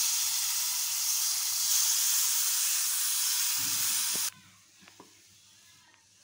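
Cold milk poured into a hot pan of ghee-roasted oats, hissing and sizzling loudly as it hits the hot fat, then cutting off abruptly a little over four seconds in.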